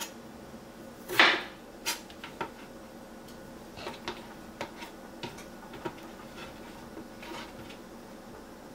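Chef's knife cutting peeled raw potatoes into wedges on a cutting board: one louder cut about a second in, then light, irregular knocks of the blade on the board.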